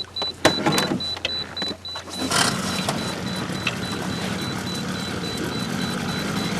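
A few knocks and rattles in the boat, then a small outboard motor starts about two and a half seconds in and settles into a steady idle.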